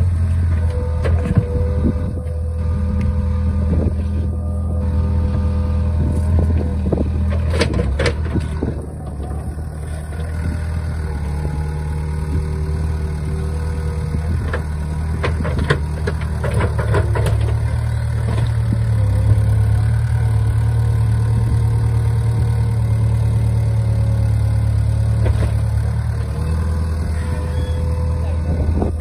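Mini excavator's diesel engine running hard under hydraulic load as the machine, bogged in deep mud, pushes with its boom and bucket to free itself. The engine note rises and holds higher for several seconds in the second half, with a few knocks and clanks along the way.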